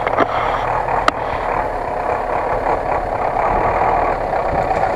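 GAZ-66 truck's engine running steadily as the truck crawls through boggy, wet ground. A single sharp click about a second in.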